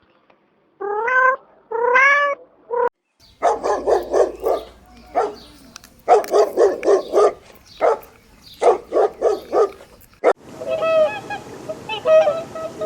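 Cat meowing three times, rising in pitch, then a long run of rapid, repeated animal calls in quick groups. About ten seconds in, honking calls like geese start over a steady hiss.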